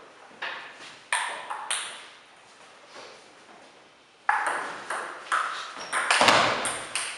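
Table tennis ball clicking: a few light ticks in the first two seconds, then from about four seconds a fast rally of the ball striking the table and the rubber-faced bats, about two to three hits a second. One heavier thump comes amid the hits near the end.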